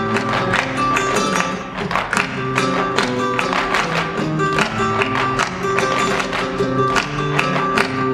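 Live flamenco music in the alegrías form, led by acoustic guitar, with sharp percussive strikes keeping an even beat.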